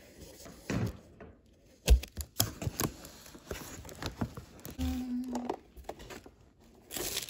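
Cardboard box flaps being pulled open by hand, with scattered crackles, scrapes and knocks of cardboard, the loudest knock about two seconds in. A short rustle of paper comes near the end.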